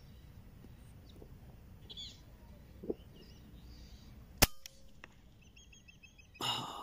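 A single sharp shot from a Taipan 5.5 mm PCP air rifle about four and a half seconds in, fired at a duck 81 metres away. A short run of high chirps follows.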